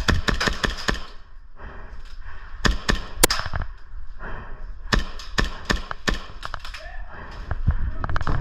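Airsoft guns firing short bursts of rapid sharp shots: a quick burst at the start, then several more scattered bursts and single shots.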